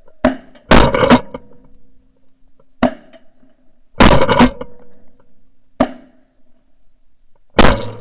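Three shotgun shots about three and a half seconds apart, each very loud and clipped, recorded from a barrel-mounted ShotKam camera; a single sharp click comes shortly before each shot.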